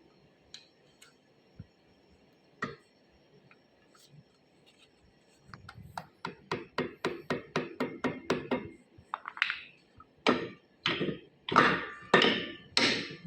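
Hammer strikes: a few scattered light knocks, then quick taps about four a second from about halfway, turning into heavier blows about two a second near the end, some of them ringing.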